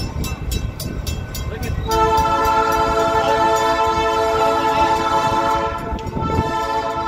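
Train rumbling through a road crossing, with the crossing bell dinging rapidly for the first two seconds or so. The train's horn then sounds a loud, long chord of several notes, breaks off briefly near the end, and sounds again.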